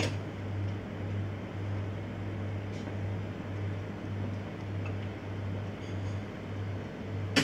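Low machine hum that throbs about one and a half times a second, with a few faint ticks.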